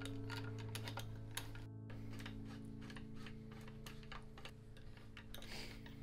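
Light, irregular clicking and tapping of a thin metal tool against a road bike's stem and handlebar, several small clicks a second, over quiet background music with long held notes.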